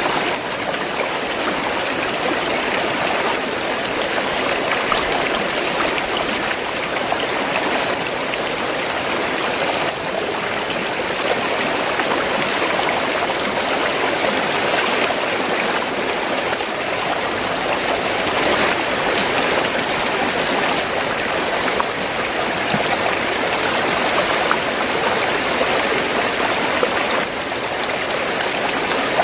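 Fast-flowing stream water gurgling and rushing in a steady, unbroken wash.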